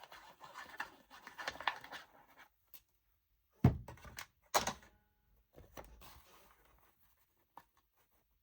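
Paper being rubbed by hand to press glued ephemera flat, then two sharp knocks about a second apart as things are set down on the worktable.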